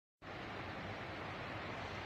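Steady, even rushing of flowing water from a mountain stream or waterfall, starting suddenly just after the opening.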